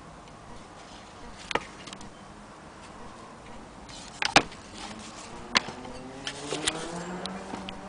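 Willcox & Gibbs sewing machine hand-crank wheel being handled and then spun by hand: a few sharp knocks, then a whirring hum that rises in pitch from about halfway in as the wheel speeds up and levels off near the end.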